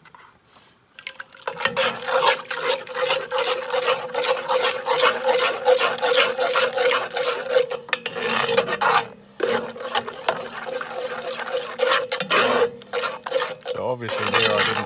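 A metal utensil scraping rapidly around the bottom of a cast-iron camp oven, stirring flour-and-water paste into the pan juices to make gravy. The quick strokes start about a second in, with a steady tone underneath, and break off briefly twice.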